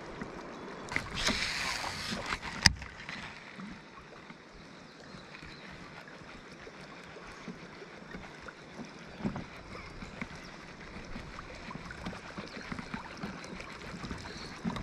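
River water moving quietly around a drifting raft, with small scattered knocks and drips. About a second in, a brief hiss lasts just over a second and ends in one sharp click.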